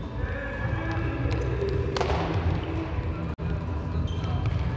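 Players' footfalls and shoes on a hard indoor court floor, echoing in a large sports hall over a steady low rumble. A brief rush of noise comes about two seconds in, and the sound drops out for an instant a little after three seconds.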